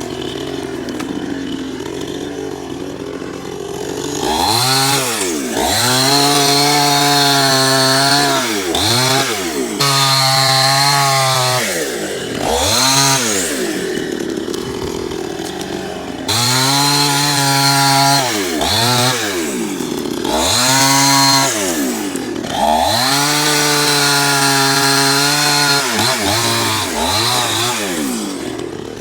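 Chainsaw engine idling, then revved up again and again from about four seconds in. Each time the engine speed climbs, holds high for a second or a few, and drops back.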